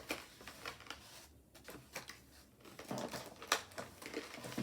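Plastic candy wrapper crinkling and crackling as it is handled and torn open, in a run of irregular small clicks, the sharpest about three and a half seconds in.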